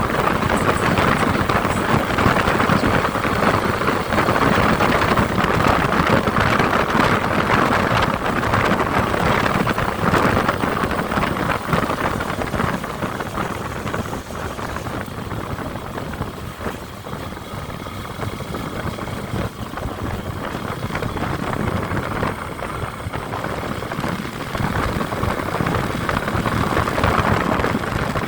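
Car driving along, a steady rush of road and engine noise that eases slightly in the middle and builds again near the end.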